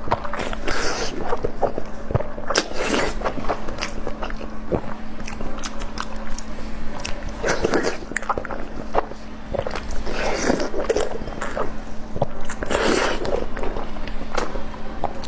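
Close-miked eating: repeated bites and chewing with many sharp, crunchy clicks, over a faint steady hum.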